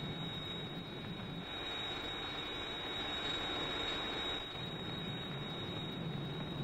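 Steady low rumbling drone of an underground fire in a smoke-filled pit, fading out for a few seconds in the middle and returning, over a faint hiss and a thin steady high whine.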